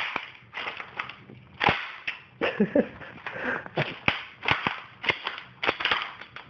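Plastic and metal parts of an Apple iBook laptop being pried and forced apart: an irregular string of sharp cracks, clicks and snaps, about two or three a second, the loudest right at the start and near two seconds in.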